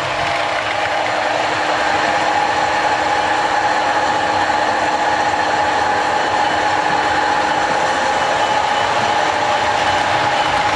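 Model trains running on a layout: a steady mechanical running noise with a constant whine.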